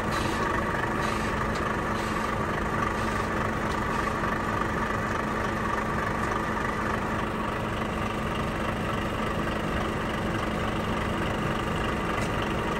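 Truck engine idling steadily, a constant hum, with a few faint clicks in the first three seconds.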